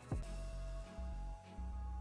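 Background music: a drum hit just after the start, then a steady bass line under a held note.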